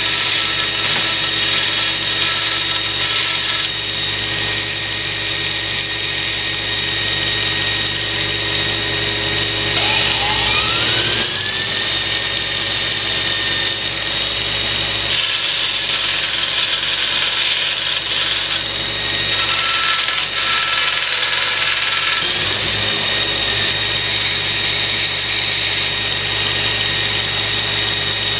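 Kalamazoo 2FS72M 2x72-inch industrial belt grinder running steadily on its half-horsepower single-phase motor while a metal piece is ground against the belt on the work table, throwing sparks. A whine rises in pitch and levels off twice, about ten and twenty-two seconds in.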